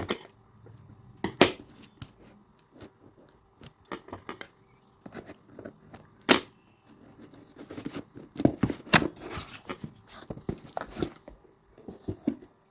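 Delivery packet being torn open by hand: rustling and crinkling of the packaging, with several sharp snaps and taps.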